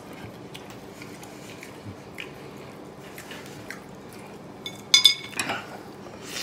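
Tableware sounds at a meal: soft scattered clicks of chopsticks on porcelain, then a sharp ringing clink of dishes about five seconds in, followed by a brief eating sound as food is bitten.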